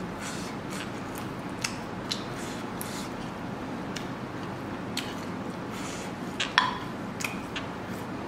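Eating by hand: fingers picking through rice on a plate, with scattered small clicks and one sharper clink against the plate about six and a half seconds in, over a steady background hiss.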